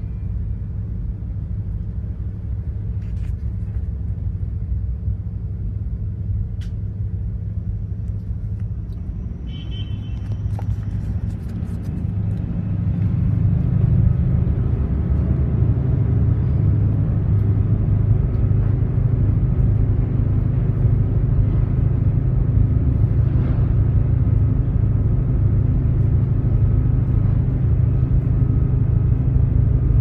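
Steady low hum and rumble of the container ship's engine machinery, growing louder about thirteen seconds in. There are a few short clicks around ten seconds in.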